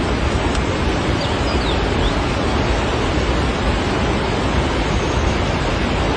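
A mountain river in flash flood, its floodwater rushing in a loud, steady, unbroken noise.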